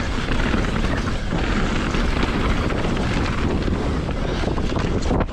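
Wind rushing over the action camera's microphone, with the steady rumble and rattle of a mountain bike's tyres and frame descending a rough trail at speed.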